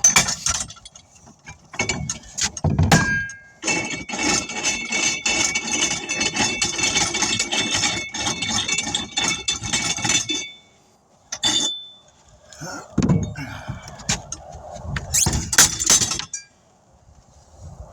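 Tire irons working a tire's bead off a steel wheel rim by hand: metal clinking and scraping, with a long stretch of ringing, squealing metal-on-rubber clatter in the middle and sharp knocks near the end.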